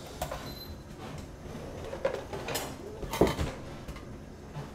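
Kitchen items handled on a wooden butcher-block counter: several separate knocks and clinks as cheese and a metal box grater are picked up and set down.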